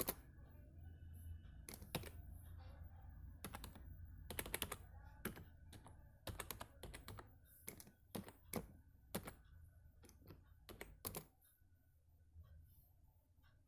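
Typing on a phone's touchscreen keyboard: irregular clicks, about two a second, stopping about eleven seconds in, over a faint low hum.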